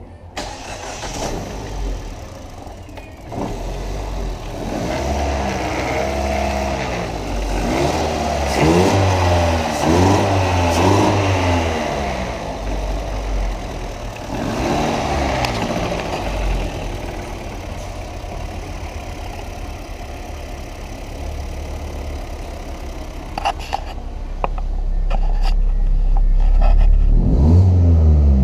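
2016 Ford Fiesta 1.6L four-cylinder engine running and being revved several times, its pitch climbing and dropping back to idle with each blip. The blips come in a cluster in the middle and once more near the end.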